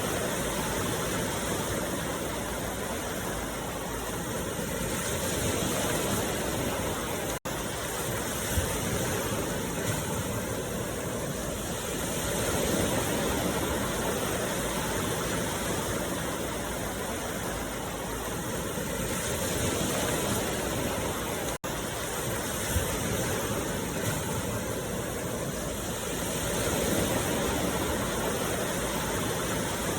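A steady rushing noise, swelling and easing every six or seven seconds, cut by two very brief dropouts, about a quarter and about two-thirds of the way through.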